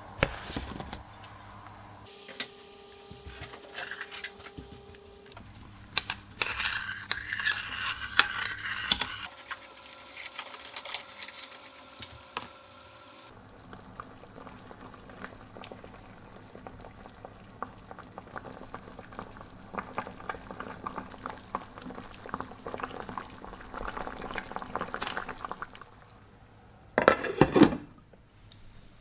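Kitchen sounds of pears being cooked for juice, in several short clips: a pot of liquid boiling and bubbling, with clinks of dishes and utensils and a brief loud clatter near the end.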